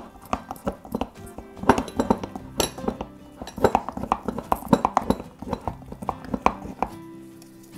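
Wooden stir stick stirring a thick mix of flour and sourdough starter in a glass jar: irregular clicks and knocks of wood against glass, stopping about seven seconds in.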